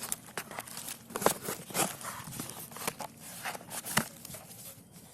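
Product packaging being handled and opened: irregular crinkles, taps and clicks, dying away just before the end.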